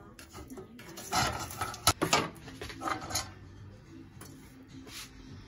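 Kitchen clatter: dishes and utensils knocking while food is prepared, in several short bursts, with one sharp click a little under two seconds in.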